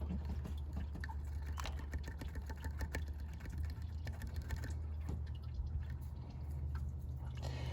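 Small scattered clicks and ticks of needle-nose pliers and broken plastic fragments from a cracked heater-hose quick-connect fitting being picked out, over a steady low hum.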